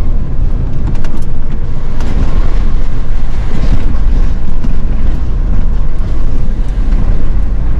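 Steady low engine and road rumble of a truck on the move, heard inside its cab, with some rough noise that may be wind on the microphone.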